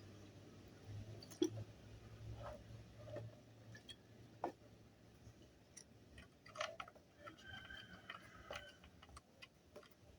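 Faint, scattered clicks and knocks of small parts and tools being handled. A chicken calls faintly in the background about seven seconds in.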